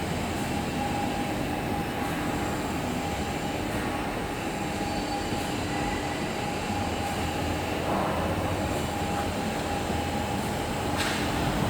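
Woodworking machinery in a CNC workshop running steadily, a continuous mechanical hum with a steady high whine, with a short knock near the end.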